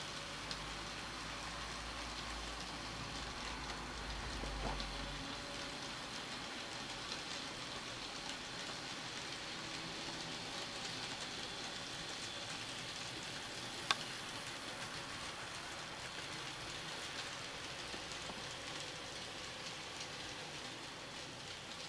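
N-gauge model freight train running on tight curved TOMIX track: a steady hissing rattle of the small wheels on the rails and the locomotive's motor, with faint ticks throughout. A low rumble sounds during the first few seconds, and a single sharp click comes about 14 seconds in.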